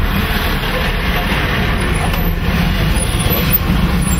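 Steady low rumble and road noise of a moving vehicle.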